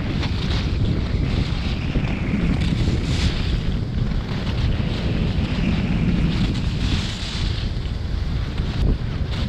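Wind rushing over the camera microphone while skiing downhill, a heavy low rumble, with the hiss of skis scraping and carving on packed snow that swells and fades with each turn.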